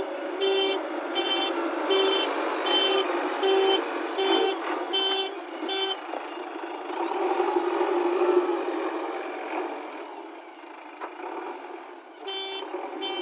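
JCB 3DX backhoe loader's reversing alarm beeping at a steady pace, about once every 0.7 s, over its running engine. The beeping stops about six seconds in, the engine grows louder for a couple of seconds and then dies down, and the beeping starts again near the end.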